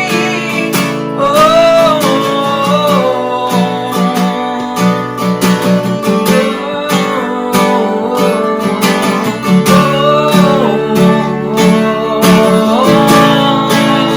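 Acoustic guitar strummed under a singer's voice in a slow worship song.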